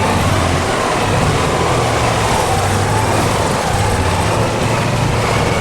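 Cushman utility vehicle's engine running steadily, a low hum under a broad rushing noise.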